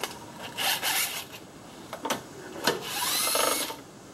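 Cordless power tool with a 12 mm deep socket spinning out intake manifold bolts. A few short bursts and clicks come first, then a motor whine rises in pitch and holds for under a second near the end.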